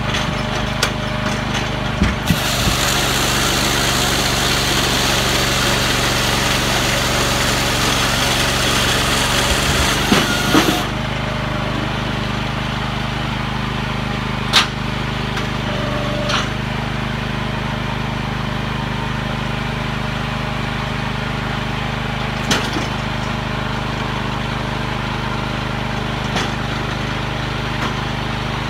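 Firewood processor's 14 hp Kohler engine running steadily, driving the hydraulics. From about two seconds in, for roughly nine seconds, a loud hissing rasp of the saw chain cutting through a log. Then a few separate sharp knocks as the wood is moved and split.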